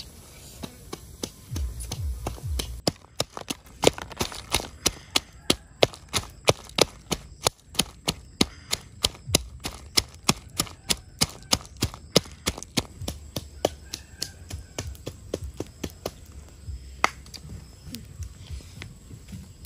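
A knife chopping: a long run of sharp, even knocks, about two or three a second, that starts a few seconds in and thins out near the end.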